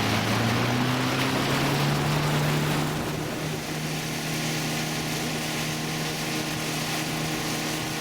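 Motorboat engine running under way, its pitch rising over the first two to three seconds as the boat gathers speed, then holding steady. A rushing hiss of water and wind goes with it and eases about three seconds in.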